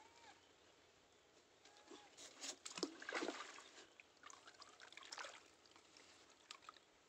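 Water trickling and splashing as the wet rope of a cast net is hauled in hand over hand from a pond, with a cluster of louder splashes about two to three seconds in and another near five seconds.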